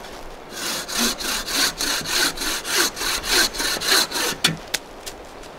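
A 24-inch bow saw cutting through a green log with quick, even push-and-pull strokes, about three a second; the cut goes easily. The sawing stops about four and a half seconds in, followed by a few sharp clicks.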